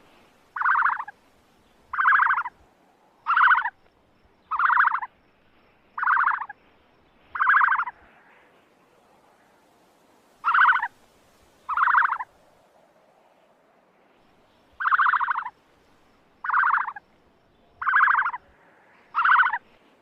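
A large bird calling repeatedly: about twelve short calls, each about half a second long. The first six come evenly about every 1.3 s, then two after a pause, then four more after a second pause.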